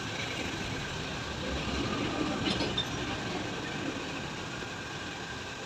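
Steady running noise of a workshop machine crimping the body of a motorcycle mono-shock shut, with a faint metallic clink about two and a half seconds in.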